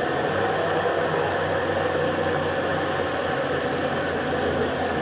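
Personal cup blender running steadily, its motor humming under a loud whirring noise as it blends fruit into a smoothie.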